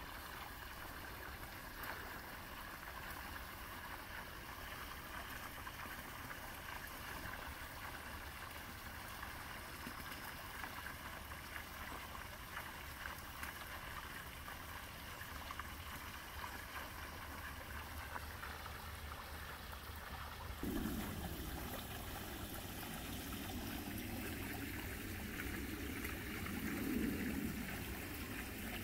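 Running water trickling steadily. About twenty seconds in, a lower rumbling noise joins and the whole grows a little louder.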